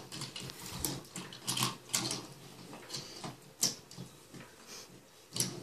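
Toy trains being handled on a wooden train table, making irregular light clicks and clacks, a few of them sharper than the rest.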